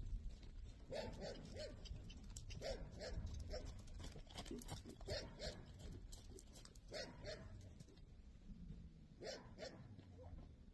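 A dog barking faintly, short barks mostly in pairs every couple of seconds.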